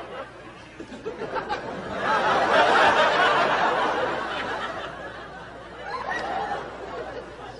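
An audience laughing, swelling to a peak about two seconds in and dying down over the next couple of seconds, with a smaller rise again near the end.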